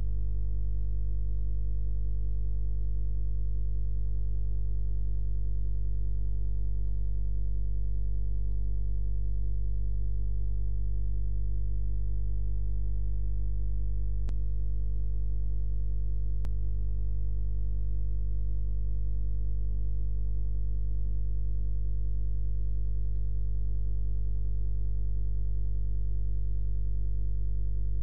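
Steady electrical mains hum, a low 50 Hz buzz with its overtones, unchanging throughout; two faint clicks a couple of seconds apart near the middle.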